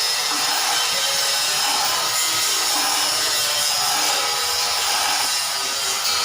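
Machinery running with a loud, steady grinding hiss.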